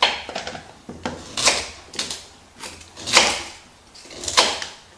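Kitchen knife cutting through raw beetroot onto a plastic cutting board: a run of uneven chops, roughly one or two a second, the loudest about three seconds in.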